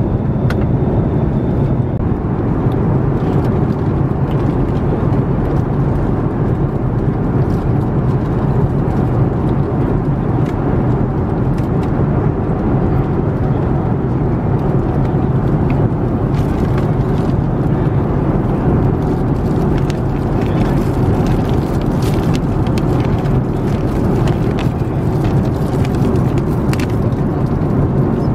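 Steady cabin drone of an Airbus A330-900neo in cruise: the Rolls-Royce Trent 7000 engines and airflow heard inside the passenger cabin as a constant low hum. Light rustling of a paper snack bag being handled in the second half.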